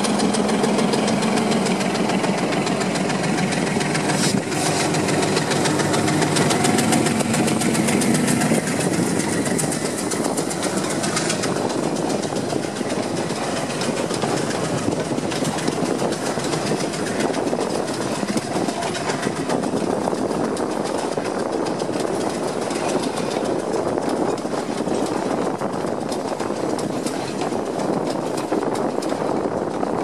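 Sri Lanka Railways diesel passenger train passing close by on the coastal line. For about the first nine seconds its locomotive engine hum is loudest, then a steady rolling noise of the carriages' wheels on the rails follows with faint clicks.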